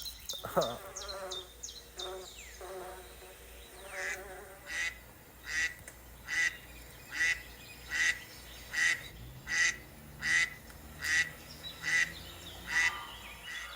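A wild bird calling, with a few calls early on, then a steady series of about a dozen short, evenly spaced calls, a little under a second apart, starting about four seconds in.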